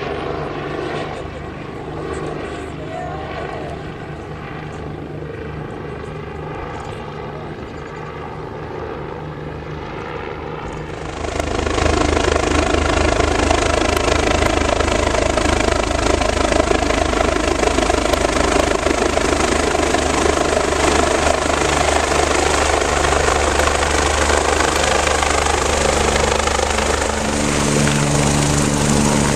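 Medical helicopter's rotor and engine sound as it arrives, becoming suddenly much louder about a third of the way in and staying loud and close.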